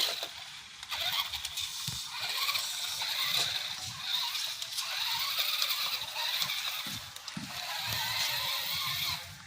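Toy remote-control monster truck's small electric motor and gears whining as it drives over grass, the whine rising and falling in loudness as it speeds up and slows.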